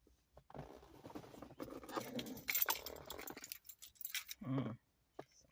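Rustling, scraping and clicking handling noise from a hand-held phone camera and the parts it is being held against, followed by a brief low vocal grunt from a woman about four seconds in.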